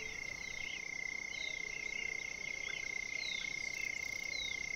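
Outdoor chorus of frogs and insects: a steady high-pitched trill and a steady higher buzz run on, with many short falling chirps scattered over them.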